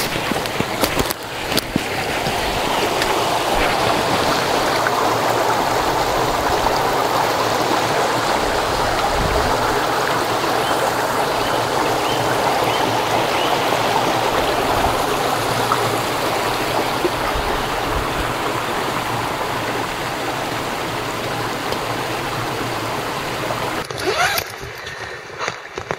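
Small woodland brook babbling over mossy rocks, a steady rush of running water. About two seconds before the end it cuts off, leaving a much quieter sound with a few handling knocks.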